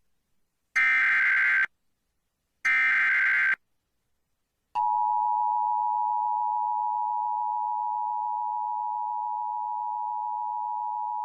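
Emergency Alert System activation: the last two of the three harsh, buzzing SAME header data bursts, each just under a second long, then after a short gap a steady two-tone EAS attention signal that begins about five seconds in and holds. This sequence precedes a National Weather Service severe thunderstorm warning.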